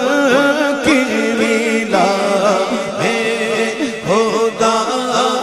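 Solo male voice singing a naat, an Urdu devotional poem, in long ornamented melismatic lines that bend and waver in pitch, over a steady low drone.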